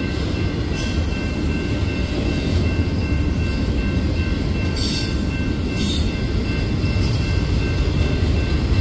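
Union Pacific double-stack intermodal freight train rolling past close by: a steady rumble of steel wheels on the rails. A faint, steady high-pitched ring runs underneath, with brief hissing sounds about five and six seconds in.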